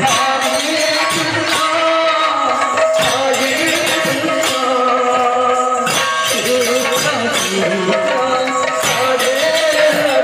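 Live sankirtan devotional folk music: held melody notes over hand-drum beats and jingling hand cymbals, with some singing.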